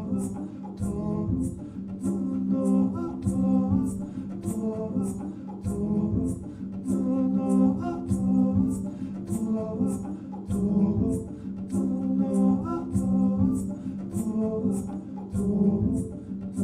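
Slow music: layered singing over a sustained low drone, with a quick, steady high ticking pulse, in a duo of voice and upright double bass.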